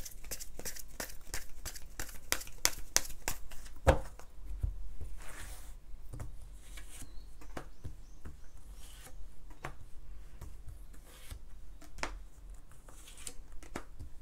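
Tarot cards being handled: a quick run of card flicks and snaps as the deck is shuffled, a louder knock just before four seconds in, then a rustle and slower, scattered flicks as cards are drawn and laid down.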